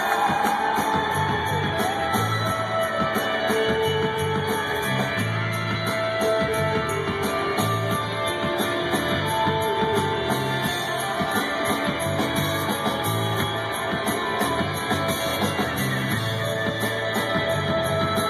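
A live rock band plays electric guitars over a repeating bass line and a busy, steady drum beat, heard from the audience in a large arena.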